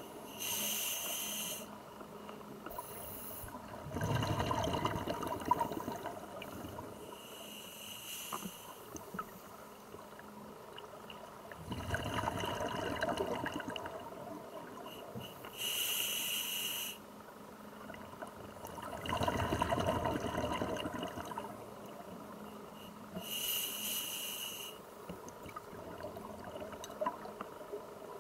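Scuba diver breathing underwater through a demand regulator: a short hissing inhale with a thin whistle about every seven to eight seconds, each followed by a longer, louder burst of bubbling exhaled air.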